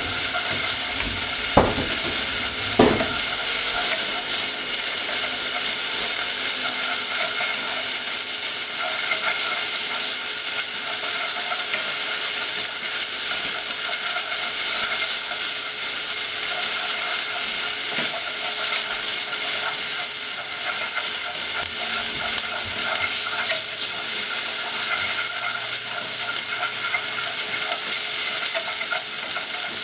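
Chopped bacon sizzling steadily as it fries in a pot, stirred with wooden chopsticks. Two sharp knocks of the chopsticks against the pot come about two and three seconds in.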